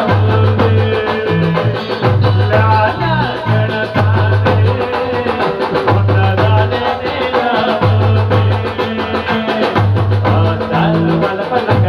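Live band music through a PA system: a male singer on a handheld microphone over drums and percussion, with a strong bass line in held notes of about a second each.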